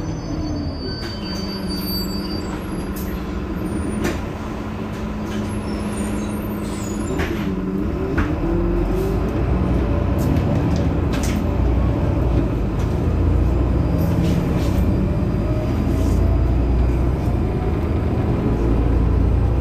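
Heuliez GX 327 city bus standing with its engine running steadily, with short hisses and clicks from time to time. The low engine rumble grows louder and deeper about halfway through.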